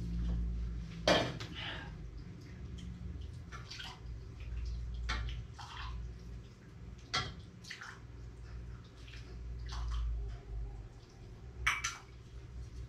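Soup being ladled from a pot into a bowl: liquid pouring and splashing, with a ladle or spoon clinking against the pot and bowl several times.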